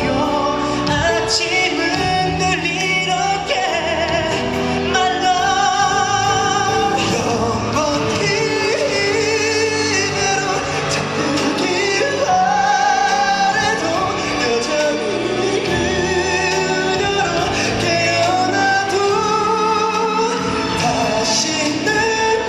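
Live concert performance: a male singer sings a melody with vibrato into a microphone over backing music.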